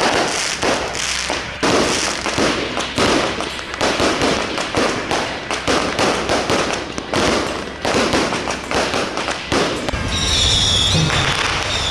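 Strings of firecrackers going off in a dense, irregular crackle of sharp bangs. About ten seconds in, the crackle thins into a steadier noise with a high held tone over a low rumble.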